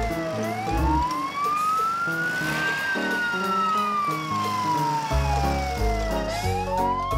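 Police car siren in a slow wail: it rises for about two and a half seconds, falls for about three and a half, then starts rising again near the end.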